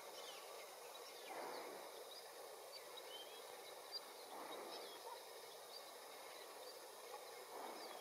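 Faint outdoor lake ambience: a soft hiss that swells about every three seconds, with scattered short, high chirps of small birds in the distance.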